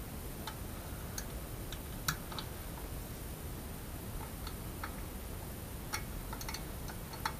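Small irregular metallic clicks and ticks as an Allen key turns the fixing screw of a glass-shelf wall bracket, with a few louder clicks about two seconds in, about six seconds in and near the end.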